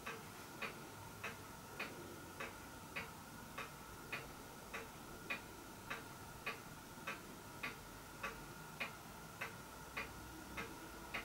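A clock ticking faintly and evenly, a little under two ticks a second, over a faint steady tone.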